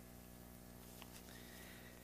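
Near silence: room tone with a faint steady hum and one faint click about halfway through.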